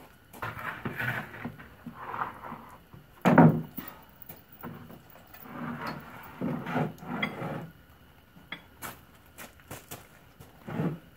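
Plywood sheets being handled and laid down on gravel: scraping and shuffling, with one loud wooden thud about three seconds in.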